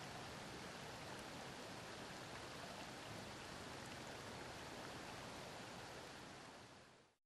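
Steady rush of flowing creek water, fading out near the end.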